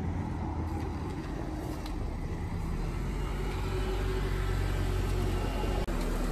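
Acura sedan's engine running as the car rolls slowly up onto the driveway, a steady low hum that grows a little louder as it comes close.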